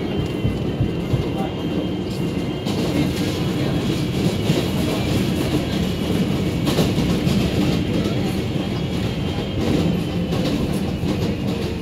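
R142A subway car running along the track: a steady rumble of wheels on rails, with a few sharp clacks over rail joints scattered through.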